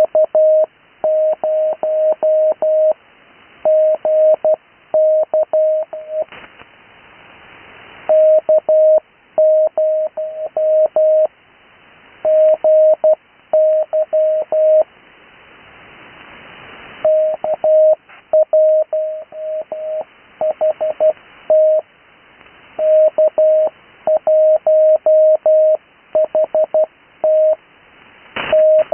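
Morse code (CW) heard over an HF radio on the 80 m band: one steady mid-pitched tone keyed on and off in quick dots and dashes. These are call signs sent at full speed without Farnsworth spacing, and receiver hiss rises in the longer pauses between groups.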